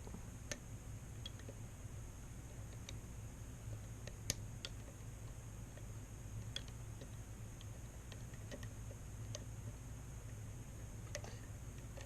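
Faint, irregular small metallic clicks of a disc detainer pick turning the discs inside an Anchor Las 810-1 padlock, as the discs are rotated clockwise as far as they go. One sharper click comes about four seconds in.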